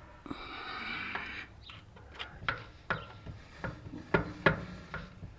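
Scraping rub for about a second, then a run of sharp clinks and knocks about two a second, from hand tools and metal parts being handled during work on a tractor's rear axle and brake.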